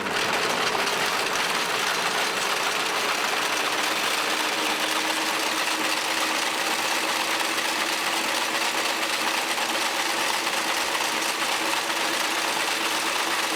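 Wire-harness braiding machine starting up and running steadily, its 24 carriers (12 clockwise, 12 counterclockwise) braiding cotton strands over a wire: a dense, even mechanical noise with a constant hum beneath.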